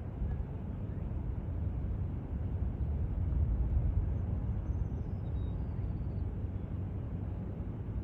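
Wind buffeting the microphone: a low, gusty rumble that swells about three to four seconds in.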